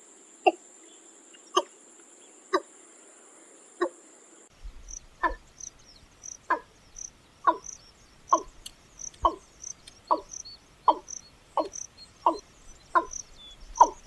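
Watercock (Gallicrex cinerea) calling: a series of short, evenly repeated notes about one a second. From about four and a half seconds in, a second recording follows with faster notes, about three every two seconds.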